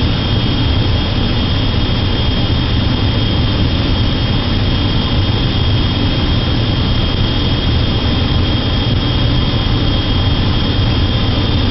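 Old gas furnace running with its burners lit: a loud, steady rushing noise with a deep low rumble. The flames are blowing back out of the burner compartment (flame rollout), a dangerous fault.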